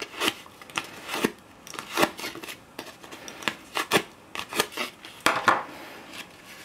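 Embossed cardstock pulled repeatedly over a bone folder to curl it, making about a dozen short papery scrapes at irregular intervals.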